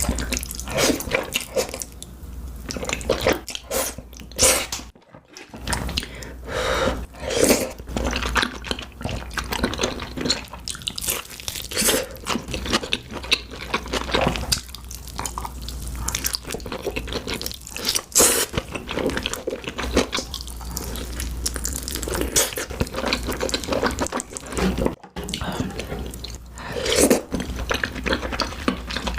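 Close-miked eating sounds: wet chewing, smacking and slurping with crunchy bites, in a quick irregular stream, with two brief drops to quiet about five seconds in and near the end.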